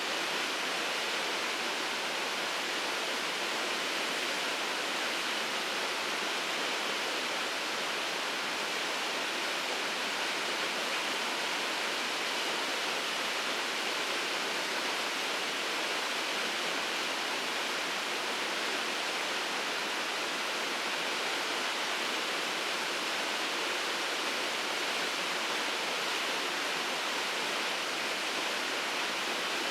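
Waterfall pouring steadily: a constant hiss of falling water with no change.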